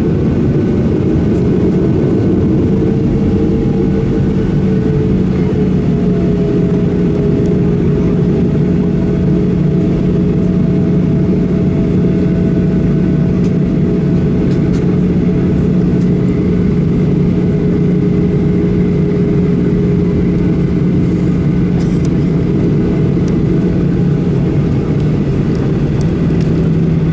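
Cabin noise inside a Boeing 737-800 taxiing, heard from a window seat beside the wing: the CFM56-7B turbofans running at taxi power, a steady drone with a low, even hum.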